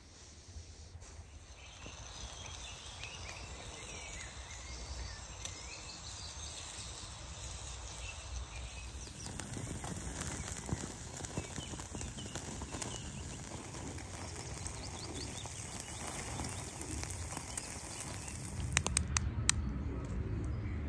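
Birds calling over quiet woodland ambience, then a wood fire crackling in a small wood-burning camp stove, with bacon sizzling on the grill above it and a few sharp ticks near the end.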